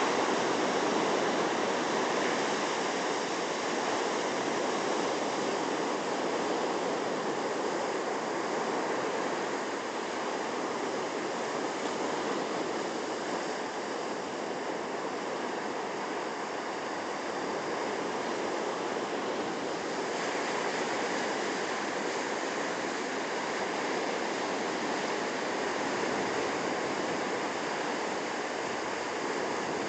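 Sea surf washing onto a beach: a steady rush of waves that rises and falls only slightly in level.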